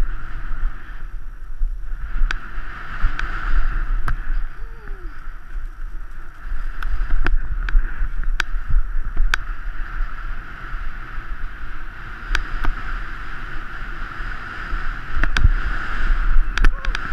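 Wind buffeting the microphone of a helmet-mounted camera, with the hiss and swish of a snowboard cutting through powder snow. The noise rises and falls with the turns, and sharp clicks come now and then.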